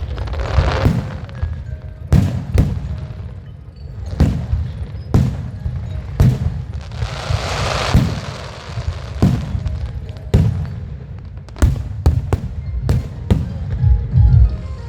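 Aerial fireworks bursting in a string of sharp bangs, about one a second, with a crackling hiss from one shell about halfway through. Music plays underneath.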